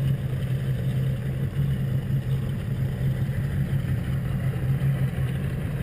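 Motorboat engine running steadily as the boat cruises slowly along a canal, a constant low drone under a rushing noise of water and air.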